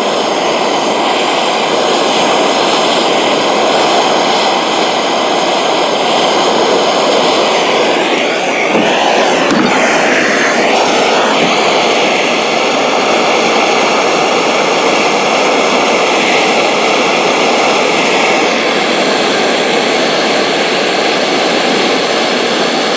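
MAP gas torch burning with a steady, loud hiss, its sound shifting briefly near the middle, as it heats a seized threaded pipe fitting to soften the old thread tape and sealant.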